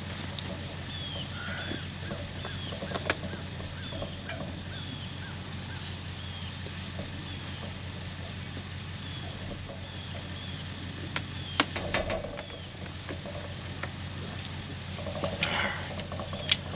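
A few sharp clicks and knocks as a breeding harness is fitted on a ram held in a metal sheep chute, the loudest about three seconds in and a cluster about two-thirds through, over a steady low hum. A bird chirps again and again, with short high calls about every second.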